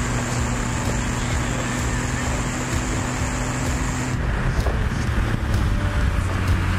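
Stock BMW 330Ci's straight-six engine running steadily at track speed, with wind and road noise through the open top. About four seconds in, the engine note drops to a lower pitch.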